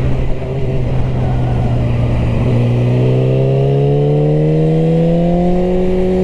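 Yamaha R6 sport bike's engine heard from the rider's seat over wind rush. It runs steadily, then from about two and a half seconds in its pitch climbs slowly and steadily as the bike accelerates.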